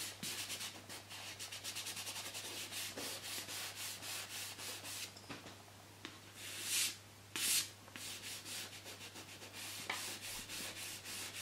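Soft pastel rubbed back and forth on paper in quick, quiet strokes, several a second, as the colour is blended in. About halfway there is a brief pause, then two longer, louder strokes before the quick rubbing resumes.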